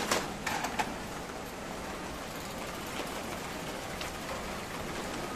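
Steady hiss of rain falling in a sudden downpour, with a few sharp clicks in the first second.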